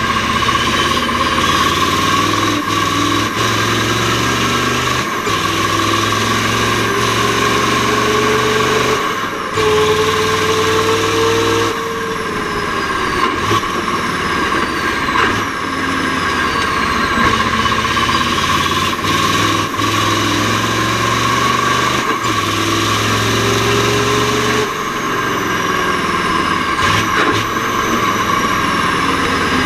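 Mack R-series V8 truck engine running hard under load, its note dropping briefly and picking up again about 9, 12 and 25 seconds in as gears are changed through the Roadranger gearbox.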